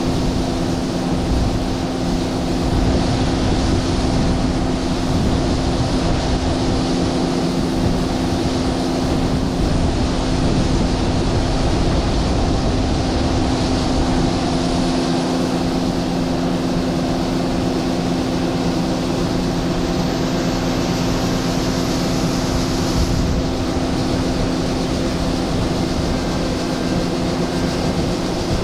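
John Deere 9500 combine, with its six-cylinder turbocharged diesel engine, running steadily while harvesting soybeans. It makes a constant machine hum with several fixed tones over a rushing noise.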